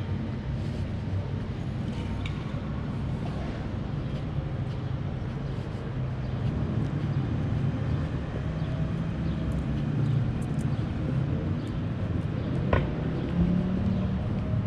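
City street traffic: a steady low rumble of car engines and tyres, with one sharp click near the end.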